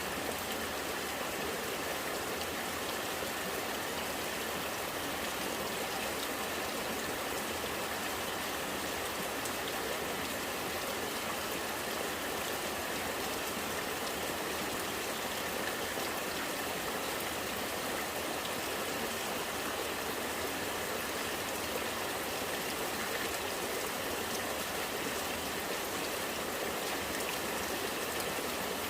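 Rain falling with rainwater running and gurgling, a steady, even wash of water sound.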